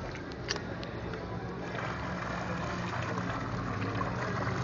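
Piranhas thrashing and splashing at the water surface around a hooked fishing line. The splashing builds from about two seconds in and grows louder toward the end, over a steady low hum.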